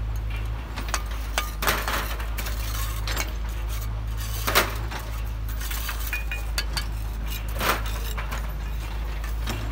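Bricklaying: steel trowels scraping and tapping on bricks and mortar, with a few sharp clinks, the loudest about halfway through, over a steady low hum.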